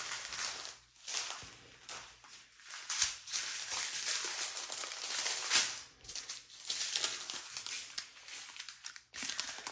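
Small plastic zip bags of diamond painting drills crinkling on and off as they are handled and sorted.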